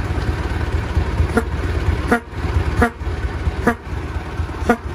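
Brass squeeze-bulb horn on a 1913 Overland Model 69 honked five times, each toot short and roughly a second apart, over the car's engine idling.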